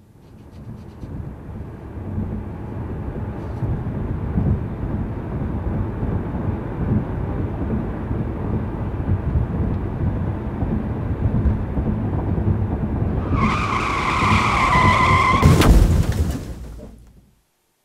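A car's engine rumbling and building in loudness, then a tyre screech for about two seconds near the end, a single sharp bang, and the sound cuts off abruptly.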